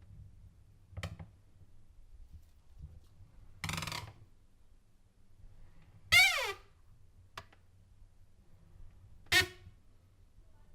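Door hinges squeaking: four separate short squeaks a few seconds apart, the loudest one about six seconds in sliding down in pitch.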